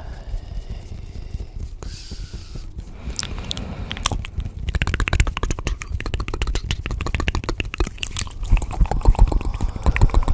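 Layered ASMR sound effects: a low rumble under dense clicking and crackling, which gets busier from about four seconds in.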